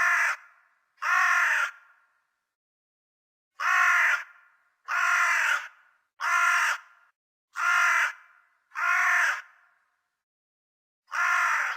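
Crow cawing: eight harsh caws of about half a second each. Two come close together, then after a pause a run of five at roughly one a second, then one more near the end.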